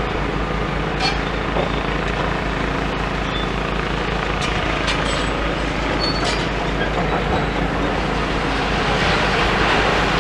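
Diesel engines of demolition excavators running steadily, with a few light knocks of debris.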